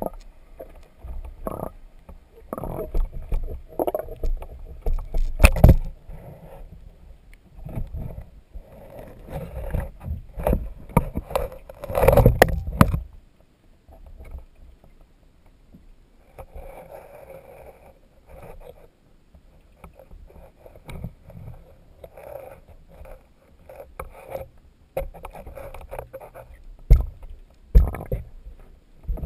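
Irregular muffled knocks, bumps and sloshing of water around a submerged camera rig as it is moved along a sunken hull. The loudest knocks come about 6 and 12 seconds in, with a quieter stretch just after.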